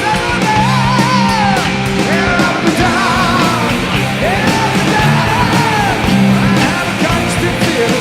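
Heavy rock music with a bending, gliding lead line over steady bass and drums.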